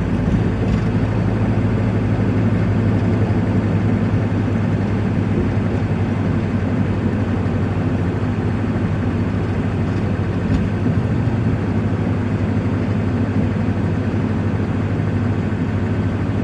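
Vehicle engine and road noise heard from inside the cabin while driving, a steady low hum.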